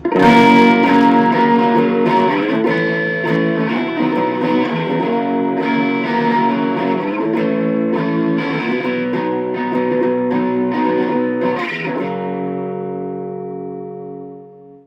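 Kramer electric guitar on its humbucker pickup, played through a Boss Katana Mini 7-watt amp on its crunch channel: strummed chords changing a few times, with the last chord left ringing and fading away near the end.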